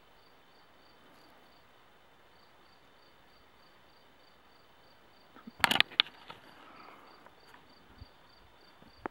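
A cricket chirping steadily, a faint high pulsed tone about three times a second. About six seconds in, a brief loud clatter of handling as the compass is set down on the ground.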